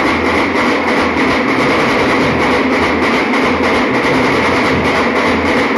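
Large dhol-tasha troupe playing: dozens of dhol barrel drums beaten together in a loud, dense, unbroken rhythm.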